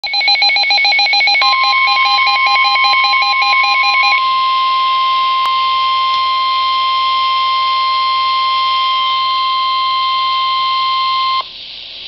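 Midland weather radio receiver sounding rapid pulsing alert beeps over the start of the steady 1050 Hz NOAA Weather Radio warning alarm tone. The beeping stops about four seconds in and the single steady alarm tone carries on, then cuts off suddenly near the end, leaving radio hiss. The tone signals that a warning broadcast is coming, here a severe thunderstorm warning.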